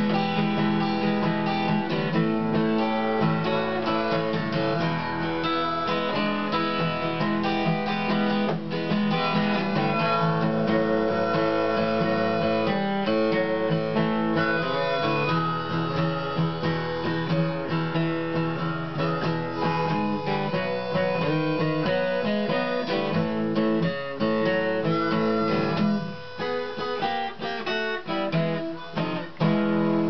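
Steel-string acoustic guitar played solo, an instrumental blues passage of strummed and picked chords; the playing thins out near the end.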